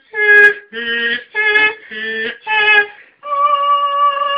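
A female voice singing wordless notes: five short notes of about half a second each, switching back and forth between a low and a higher pitch, then one long held higher note starting near three seconds in.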